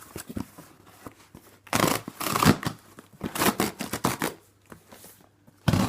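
Cardboard box being torn open by its pull tabs: several bouts of ripping and scraping cardboard, with a short sharp tear near the end.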